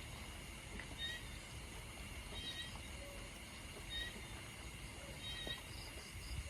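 Rain at night: a steady hiss and low rumble, with an animal's short high call repeating regularly about every second and a half.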